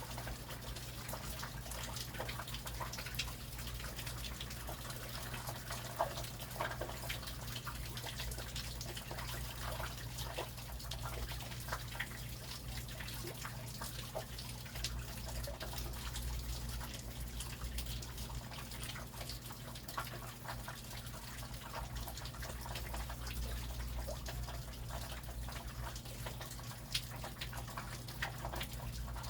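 Steady rain with many close drips and patters, over a low steady hum.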